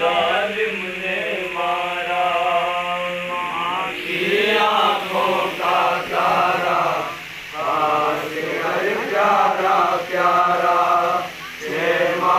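A man chanting a noha, a Shia lament, with no instruments, in long drawn-out phrases separated by short breaths.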